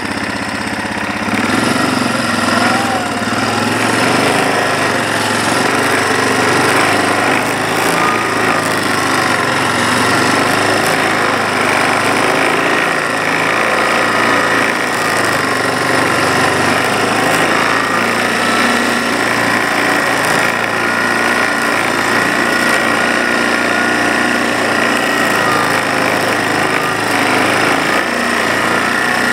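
Yamaha ATV engine running steadily under load while the quad drives along a packed snow trail, with a steady high whine over the engine note.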